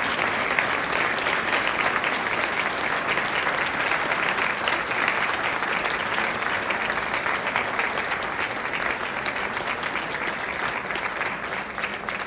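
Audience applauding: many hands clapping in a dense, steady patter that slowly thins out near the end.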